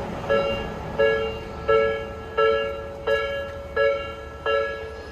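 Japanese railway level-crossing electronic warning bell ringing steadily, a pitched ding repeating about every 0.7 seconds, seven strikes, signalling that the crossing is closed for an approaching train.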